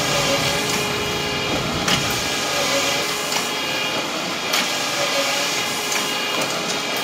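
A paper-handling line of collator, 90-degree turntable and belt conveyors running with a steady mechanical whir. Sharp clacks come about every two and a half seconds as the machinery cycles.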